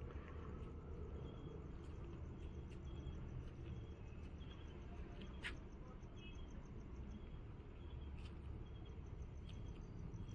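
Crickets chirping in a steady, fast high trill over a faint low rumble of background noise, with one sharp click about five and a half seconds in.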